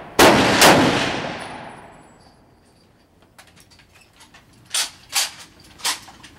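Two rifle shots about half a second apart right at the start, each with a long echo that fades over about two seconds. Later come fainter sharp clicks and knocks.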